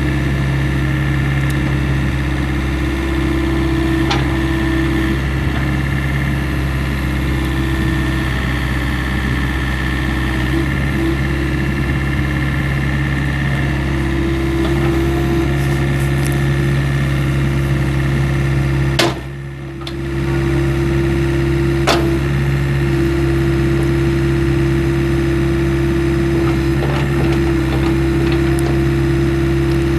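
The Komatsu 2.2-litre four-cylinder diesel engine of a compact excavator running at a steady speed while the boom and bucket are worked, with a few sharp clicks. The sound drops away for about a second roughly two-thirds of the way through.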